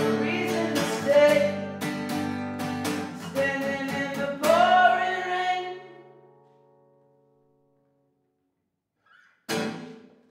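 A man singing over a strummed acoustic guitar. About four and a half seconds in, a last chord is strummed and rings out, fading to silence over a couple of seconds. Near the end there is one short, sudden sound that dies away within a second.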